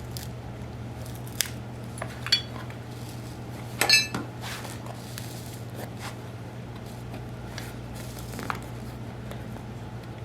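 Hand tools clinking and tapping: a few scattered sharp clicks, with the loudest metallic clink about four seconds in ringing briefly, over a steady low hum.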